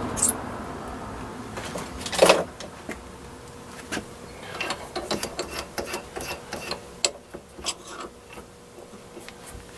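Metal clicks and clinks of a drill bit being changed by hand in a lathe's tailstock drill chuck, the old bit taken out and a half-inch bit set in. There is one louder clank about two seconds in, then a run of small irregular clicks as the chuck is turned.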